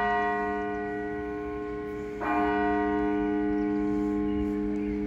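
A large tower bell tolling. A second stroke comes about two seconds in while the first is still ringing, and each stroke rings on with a long, slowly fading hum.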